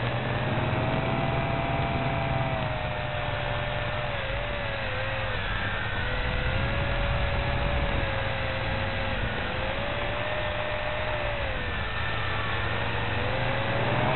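A small FPV quadcopter's motors and propellers whining in flight, heard through the drone's own onboard camera. The whine wanders up and down in pitch with the throttle and rises near the end.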